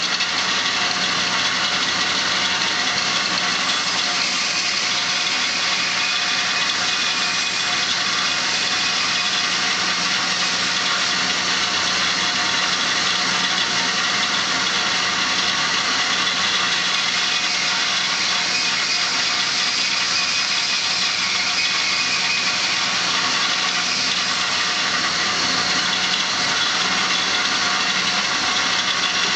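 An 1888 S.A. Woods 36-inch bandsaw running steadily, a loud even mechanical hum with a low steady tone under it, as a chunk of material is fed through the blade and cut in two.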